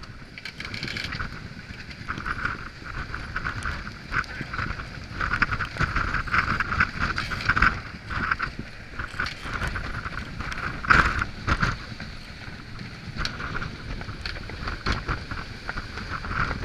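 Wind buffeting the microphone over the rush and hiss of water as a Nautitech Open 40 sailing catamaran runs fast through rough sea in strong wind, with irregular hits of spray and waves. One hit about eleven seconds in is the loudest.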